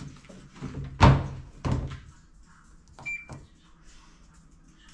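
Washing machine being shut: a loud thump about a second in and a softer knock after it, then a short high beep from its control panel about three seconds in as the cycle is set.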